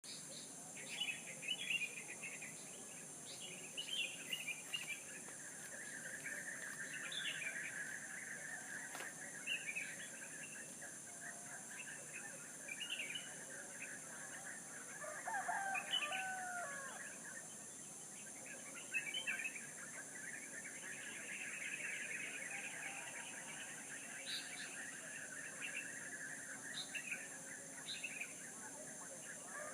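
Small birds chirping in short calls throughout, with a rooster crowing once about halfway through, over a steady background hiss.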